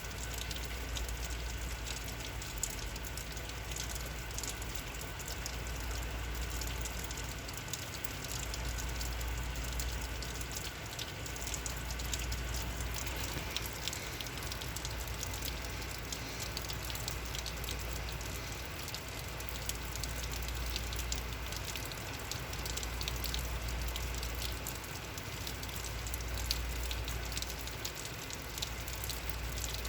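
Heavy rain falling steadily, with many drops ticking on hard surfaces. A low rumble swells and fades every few seconds underneath.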